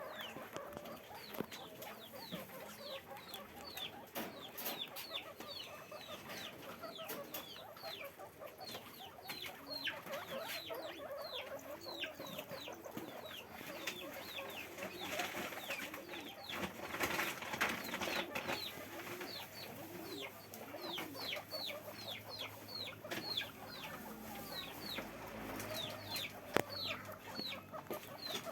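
Guinea pigs squeaking: a rapid, continuing string of short high squeaks, each dropping in pitch, over a low background of movement with a few sharp clicks.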